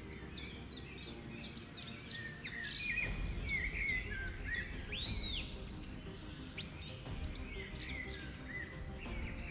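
Small birds chirping and twittering, many quick short calls one after another, over a low rumbling background noise that grows about three seconds in.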